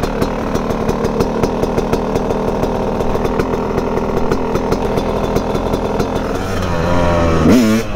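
Two-stroke dirt bike engine idling with an uneven popping. Near the end the revs rise in pitch.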